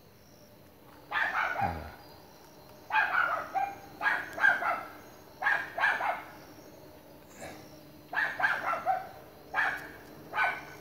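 Dogs barking in repeated bouts of several sharp barks each, with short pauses between the bouts.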